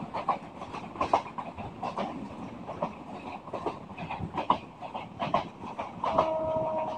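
Passenger train carriage running along the track: a steady rumble from the moving carriage with irregular clattering knocks from the wheels over the rails. About six seconds in, a steady tone with several pitches joins for about a second.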